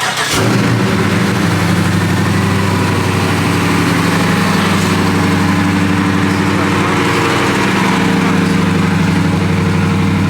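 Dodge Challenger's V8 engine idling loudly and steadily just after being started.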